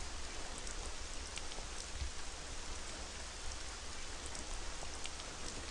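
Steady rain, an even hiss with faint scattered pattering drops.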